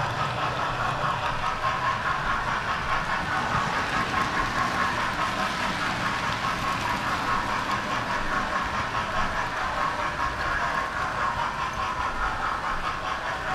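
Model railway train running steadily along its track, heard close up from on board: a continuous motor whir with the rumble and light clatter of wheels on the rails.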